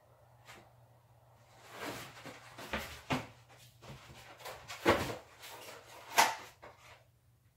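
Kitchen handling clatter: a run of knocks and bumps, of the kind cupboards, drawers and utensils make, starting about a second and a half in. The loudest two come about five and six seconds in.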